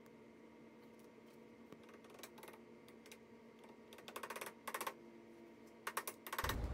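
Quick light taps of a soft-faced mallet driving a new seal up into the caster fork bearing bore of a zero-turn mower's frame arm. They come in short bursts of rapid strokes, about four seconds in and again near the end, with a few faint single taps before.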